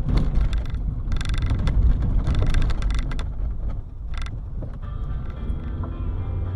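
Car driving over a rough dirt road, heard from inside: a steady low rumble of engine and tyres, with repeated clatters and knocks as it goes over bumps.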